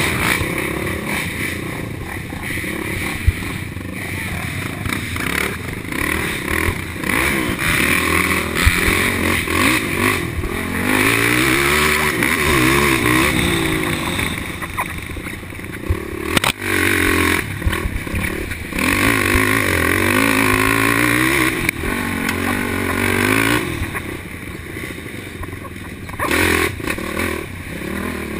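Racing quad (sport ATV) engine ridden at race pace, revving hard and backing off again and again, its pitch rising and falling.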